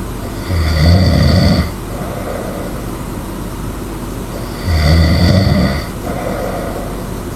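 A person snoring: two loud snores about four seconds apart, each lasting just over a second, with a softer breath after each.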